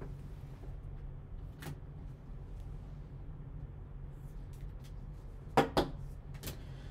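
Sharp plastic clicks as a trading card is handled in a clear rigid card holder: a faint click early on, then two loud clicks in quick succession near the end and one more just after, over a steady low hum.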